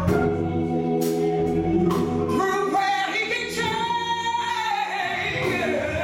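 Gospel music: held keyboard chords with a few sharp percussion hits. About halfway in, a solo woman's voice rises to a high held note, then fades out.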